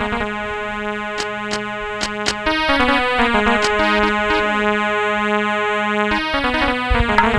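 Sustained chords on a keyboard instrument over a steady low drone, changing chord twice, with a few sharp clicks about one to two and a half seconds in.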